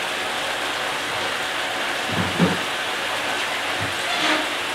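Fish curry gravy boiling hard in an uncovered kadai: a steady bubbling hiss. Two soft low thuds come about two and four seconds in.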